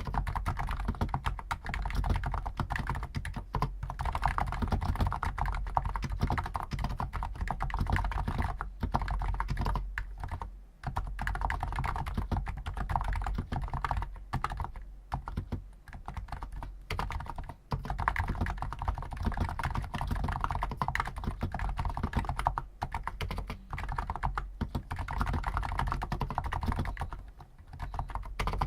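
Steady, fast typing on a Hansung GTune CHL5 XRGB keyboard with stock 50 g electro-capacitive (contactless) switches: a dense run of keystrokes with a few short pauses.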